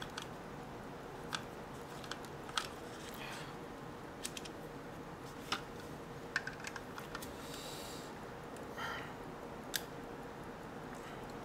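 Sparse, irregular light clicks and scrapes of a Torx driver bit working at a shallow center-pin security Torx screw in a plastic battery charger case.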